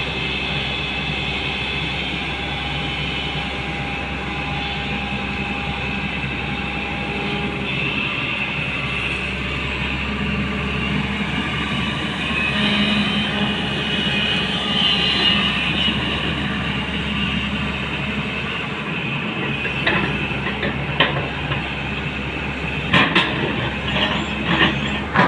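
Hyundai 245LR long-reach excavator's diesel engine running hard under load, with a high whine over the engine noise. Several sharp metallic clanks come near the end.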